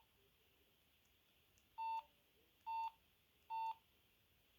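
Samsung SGH-A300 mobile phone keypad beeps: three short, identical tones a little under a second apart as its keys are pressed.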